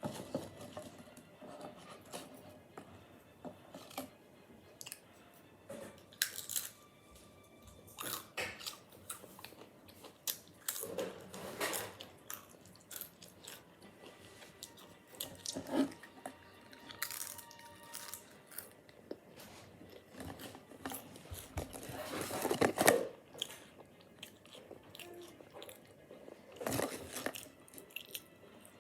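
Someone biting and chewing potato chips, irregular crisp crunches throughout, loudest about two thirds of the way in.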